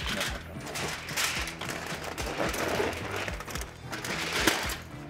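Aluminium foil crinkling and crackling in repeated bursts as it is folded and pressed around a brisket, over background music.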